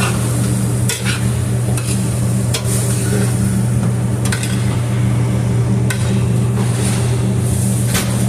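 Chicken and sautéed peppers sizzling in a pan as they are stirred, with a utensil scraping and knocking against the pan now and then, over a steady low hum.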